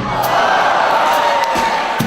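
Theatre audience cheering and whooping loudly, with one voice holding a long whoop.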